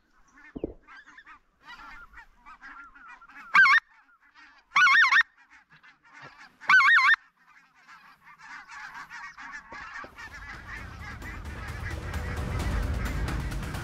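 Geese calling: many overlapping honks from a flock, with three loud, close honking calls at about 3.5, 5 and 7 seconds in. A low rumble builds over the last few seconds.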